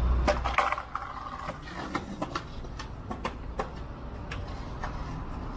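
City street traffic: a vehicle's low rumble that drops off about half a second in, then a scatter of irregular sharp clicks and knocks over the steady hum of the street.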